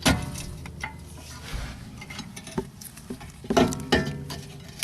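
Metal clinks and scraping as a screwdriver levers between the brake pad and the caliper to push the caliper piston back. Two loud ringing metallic knocks stand out, one at the start and one about three and a half seconds in, with lighter clicks between.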